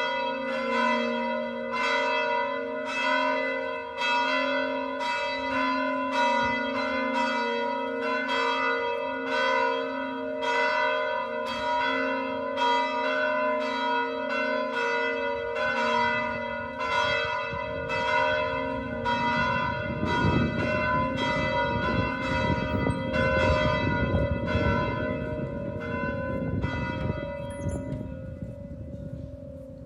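Church bells ringing a peal. Repeated strikes follow one another closely, and the deep hum tones hang on between them. The strikes die away near the end, and a low rumbling noise comes in about two-thirds of the way through.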